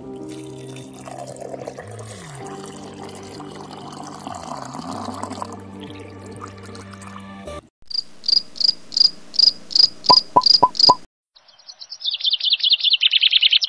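Water poured from a glass into a miniature brick well, with soft background music underneath. The music and pouring stop, and a series of short high chirps follows, about three a second, then a fast run of chirps falling in pitch near the end.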